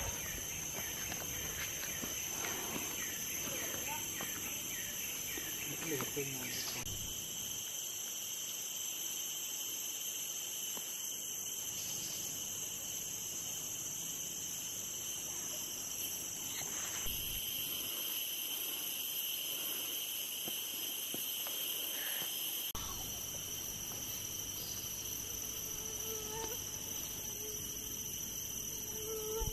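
Tropical rainforest insect chorus: steady, high-pitched droning and trilling from insects at several pitches at once, the mix shifting slightly a few times.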